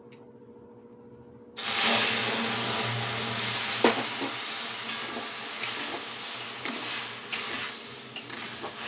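Water poured into a hot aluminium kadai of ghee-roasted semolina, bursting into a loud sizzle about a second and a half in and hissing on, while a metal spatula scrapes and stirs the pan. This is the point where water goes into roasted suji to cook upma.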